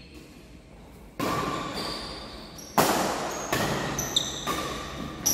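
Badminton rackets striking a shuttlecock in a doubles rally: about five sharp hits roughly a second apart, each with a brief high string ping, echoing in a large hall.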